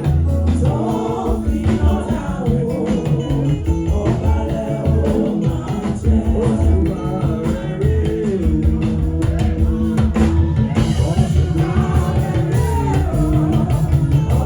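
Gospel praise music with singing voices over a drum kit, bass and guitar, with a steady driving beat.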